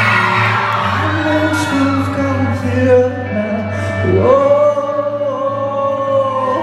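A man singing live with instrumental accompaniment. About four seconds in, his voice scoops up into a long held note.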